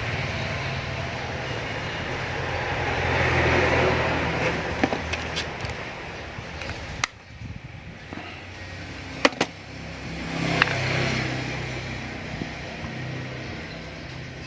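Engine noise of a passing motor vehicle, swelling and fading twice, with a few sharp clicks in between.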